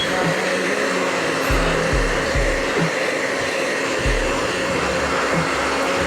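Hand-held hair dryer running steadily, blowing baby clothes dry. Music with a deep bass beat plays underneath.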